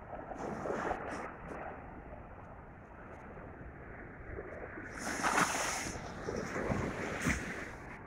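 Small ocean waves washing in over a sandy beach, with wind blowing across the microphone. The rush of surf swells briefly about half a second in and is loudest about five seconds in.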